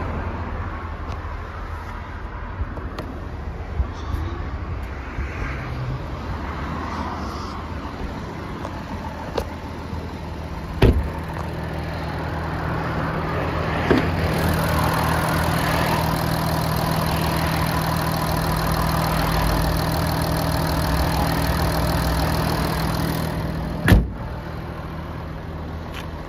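Porsche Macan S Diesel's 3.0-litre V6 turbodiesel idling with a steady low hum. A few sharp knocks are heard, the loudest about eleven seconds and twenty-four seconds in.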